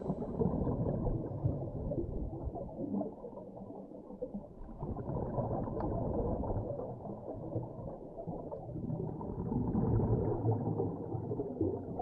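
Muffled underwater water noise: a dull rush with nothing high in it, swelling and fading, strongest again about ten seconds in.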